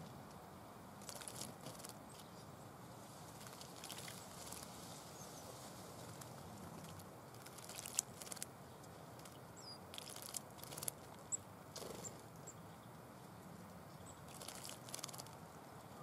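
Small birds bathing in a shallow bird bath: a great tit and a blue tit flutter their wings in the water in several short splashing flurries, over a faint steady hiss.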